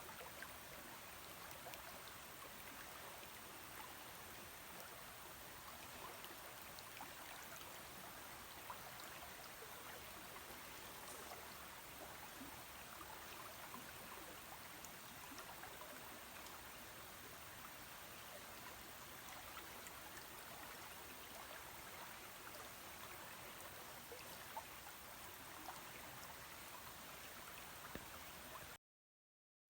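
Shallow river running steadily over stones, a faint even rush with small splashes and trickles, until it cuts off abruptly about a second before the end.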